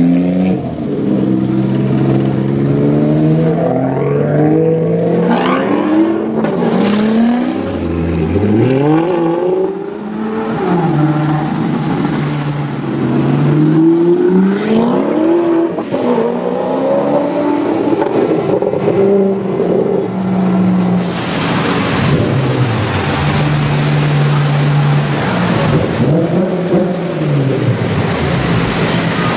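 Alfa Romeo sports car engines revving and accelerating hard, the pitch climbing and then dropping back at each gear change, several pulls in a row. Between the pulls the engines run at a steady pitch.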